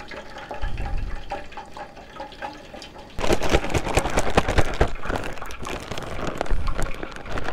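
Water poured into a zip-top plastic bag of dry batter mix. About three seconds in, the bag is squeezed and shaken: loud, continuous crinkling of plastic with wet batter sloshing inside.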